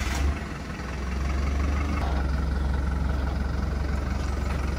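Box moving truck's engine running with a steady low rumble as the truck drives away.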